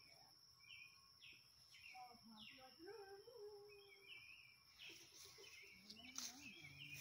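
Faint outdoor ambience: small birds chirping on and off, over a steady high-pitched insect drone.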